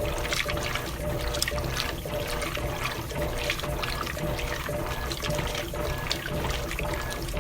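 Electrolux Silent Control 12 kg washing machine washing a load of jeans: water sloshing and splashing in the drum in an irregular, continuous churn, with a faint steady hum underneath.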